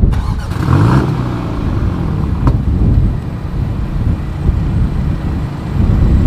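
Exhaust note of a 2020 BMW M235i xDrive Gran Coupe's 2-litre turbocharged inline-four, heard from behind the car. It blips up and back down about a second in, then runs at a steady low idle.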